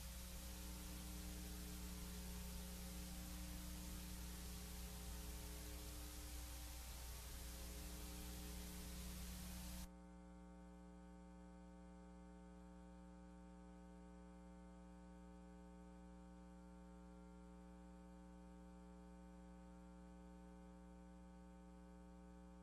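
Faint, steady electrical mains hum with hiss. About ten seconds in the hiss drops away abruptly, leaving a quieter hum.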